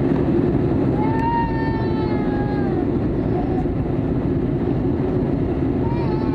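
Steady jet roar inside the cabin of a Peach Aviation Airbus A320. About a second in, a child's long wail rises slightly and then slides down in pitch. Another wail starts near the end.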